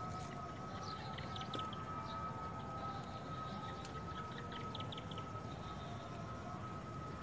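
Rice-paddy ambience: clusters of short, high chirps every second or so over two steady high-pitched tones and a low background rumble.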